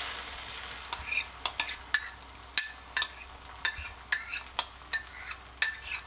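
Beaten egg with sliced onion and green chilli is poured into hot oil in a frying pan. It sizzles loudest at first, then settles to steady frying with frequent sharp clicks and crackles.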